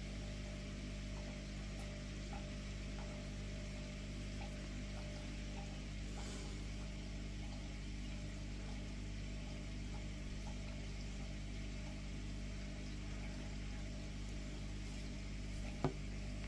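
Steady machine hum made of several fixed low tones over a hiss, with one sharp click near the end.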